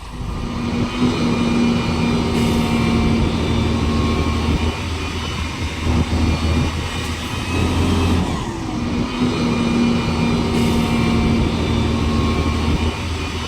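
A motor vehicle's engine running and revving, with its pitch rising and falling a few times.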